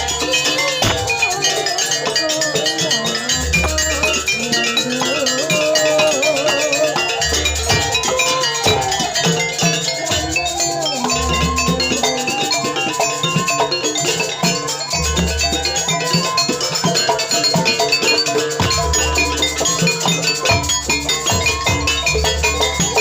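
Live traditional Javanese ensemble music for a dance: metallophones and drums play a continuous melody, with deep low strokes about every four seconds.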